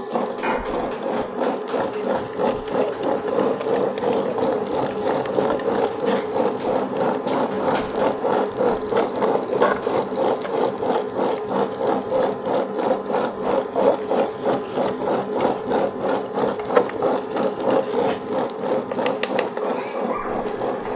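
Butterfly Rhino Plus tabletop wet grinder running, its cylindrical grinding stones churning soaked rice into batter in the rotating steel drum with a quick, regular pulsing rumble.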